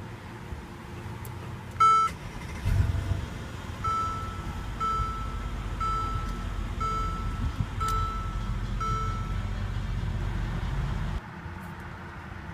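2014 Mercedes-Benz SL550's twin-turbo 4.6-litre V8 starting up with a single chime and a low burst as it catches, then idling steadily while an electronic warning chime repeats about once a second; the engine sound cuts off suddenly near the end.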